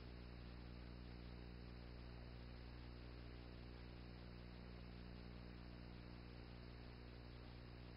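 Near silence: a steady low hum with faint hiss, the background noise of a transferred silent home movie.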